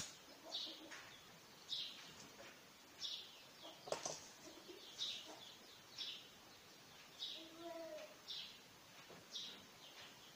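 A small bird chirping over and over, a short high chirp about once a second. A sharp click comes about four seconds in, and a brief lower call near eight seconds.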